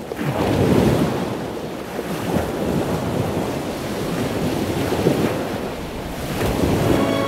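A continuous rushing noise like wind or surf on a microphone, swelling about a second in and again near the end.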